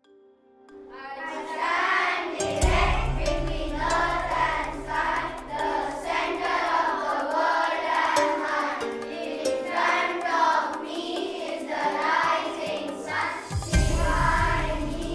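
Music: a children's choir singing over an instrumental backing with a steady sustained drone. It fades in over the first couple of seconds, and a deep bass comes in about two and a half seconds in.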